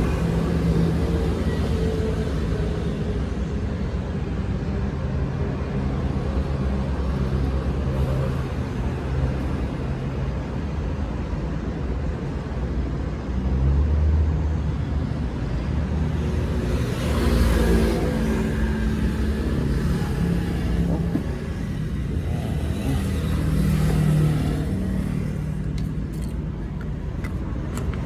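Road traffic noise: a steady rumble of passing vehicle engines, swelling as louder vehicles go by about halfway through and again near the end.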